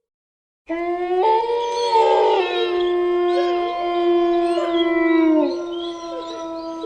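Wolves howling, starting suddenly about a second in: one long steady howl that dips in pitch near the end, with higher, wavering howls overlapping it.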